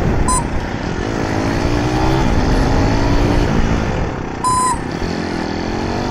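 Motorcycle riding in traffic: steady rumble of engine and wind, with the engine note rising as the bike accelerates. Two short high beeps sound, one just after the start and one about four seconds later.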